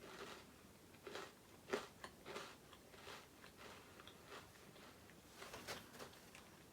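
Faint, irregular crunches of a person biting into and chewing a crunchy lilikoi biscuit.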